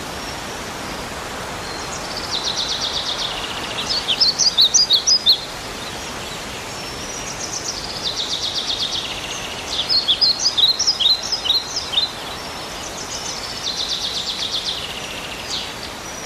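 A songbird singing the same phrase three times, each a fast, even trill followed by a quick jumble of sharper chirps, over a steady background hiss.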